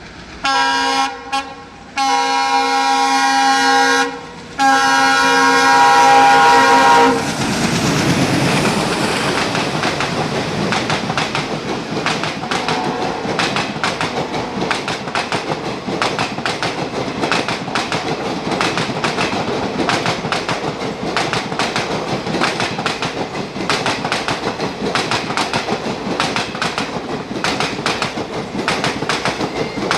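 WDM-3A diesel locomotive passing at speed: its horn sounds a short blast, a very short one, then two long blasts, the last cutting off about seven seconds in. The ALCO-type diesel engine then chugs hard as it goes by. The coaches follow with a steady clickety-clack of wheels over the rail joints.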